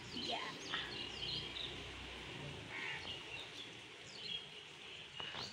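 Several birds chirping and calling in short, quick notes that sweep up and down, scattered throughout, over a faint outdoor background noise with a low rumble in the first half.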